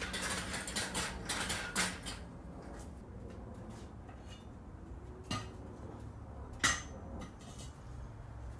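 Metal clatter and clinks of parts and tools being handled, then two sharp metal knocks about a second and a half apart, over a low steady hum.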